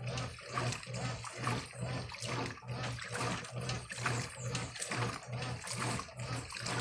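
Brastemp Eletrônica top-loading washing machine agitating a load: the motor hums in a regular rhythm of about two strokes a second as the agitator reverses, with water and clothes churning in the tub. The owner says this machine needs a new capacitor, motor and valve.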